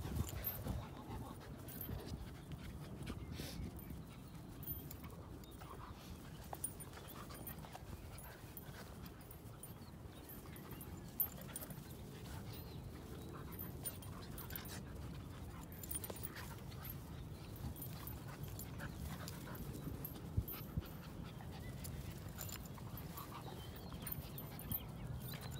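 A Staffordshire bull terrier–Rhodesian ridgeback cross and a cockapoo puppy play-fighting, heard mostly as panting and scuffling, with two sharp knocks, one about eleven seconds in and one about twenty.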